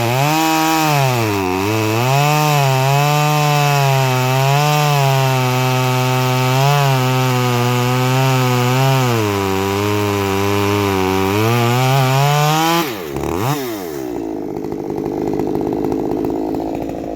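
Ported Stihl MS194T two-stroke top-handle chainsaw cutting wood at high revs, its engine pitch dipping again and again as it bogs under load. About thirteen seconds in the throttle is released and it drops to idle. The chain is running dry and hot, which the owner puts down to an oil pump that isn't oiling it.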